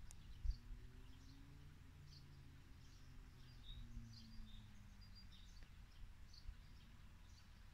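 Quiet outdoor ambience: scattered faint chirps of small birds over a low rumble, with a soft bump about half a second in.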